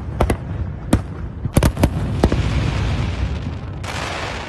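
Fireworks display: a quick series of sharp bangs, then a dense crackling hiss that grows brighter near the end, over a low rumble.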